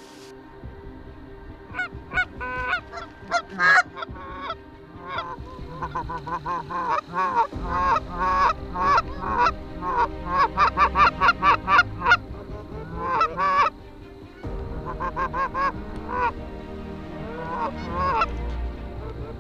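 A flock of Canada geese honking: many short calls overlap into a dense chorus that swells in the middle and thins briefly before picking up again.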